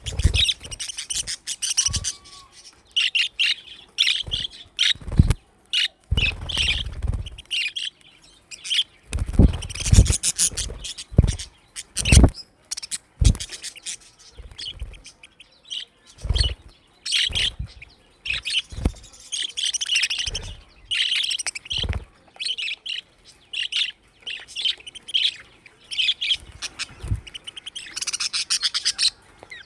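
A flock of budgerigars chirping and chattering in short, busy bursts, with frequent sharp knocks and thumps among them.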